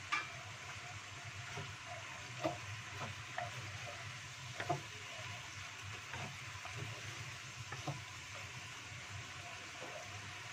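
Food sizzling in a non-stick wok while a wooden spatula stirs it, with irregular scrapes and taps of the spatula against the pan. There is a sharp knock at the very start.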